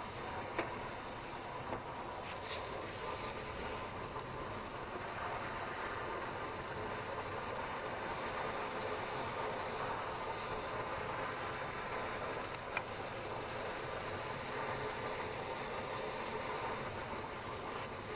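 Vacuum cleaner running steadily, its suction a continuous even hiss, with a few light clicks.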